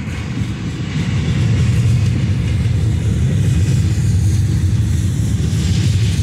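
Double-stack intermodal freight train's well cars rolling past: a steady, loud rumble of steel wheels on the rails that swells slightly about a second in.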